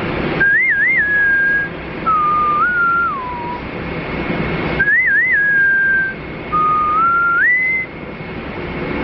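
A person whistling a tune in four short phrases, the first and third alike with two quick upward flicks, the others gliding down and then up. A brief rushing noise comes just before the tune repeats midway.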